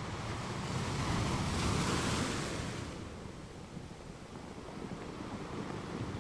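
Ocean wave breaking and washing in: a rush of surf that swells to a peak about two seconds in, then sinks back to a low, rumbling wash.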